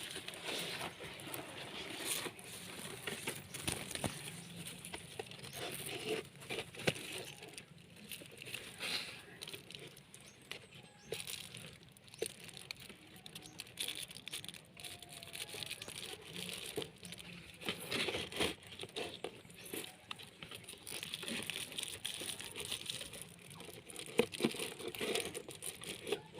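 Irregular rustling and crinkling handling noises, with scattered light clicks and taps.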